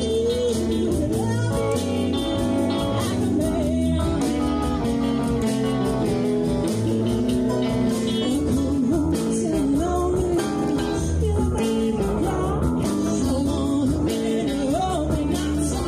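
Live blues band: a woman singing lead over electric guitars and drums with a steady beat.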